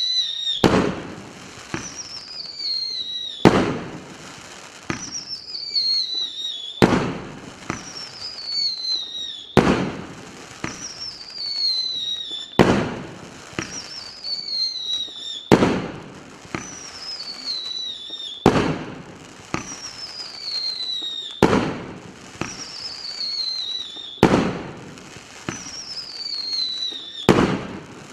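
A 35 mm whistling-comet fireworks cake firing shot after shot, about one every three seconds. Each shot is a loud bang followed by a whistle falling in pitch, ending in the smaller crack of the shell bursting.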